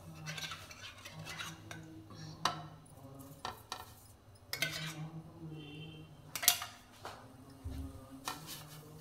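Scattered clinks and light knocks of kitchen utensils while ghee is put onto a paratha on a hot tawa, over a faint low hum. Two sharper clinks stand out, about two and a half and six and a half seconds in.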